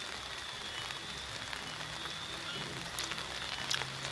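Steady hiss of rain falling, with a few sharp raindrop taps near the end. A faint low steady hum comes in past the middle.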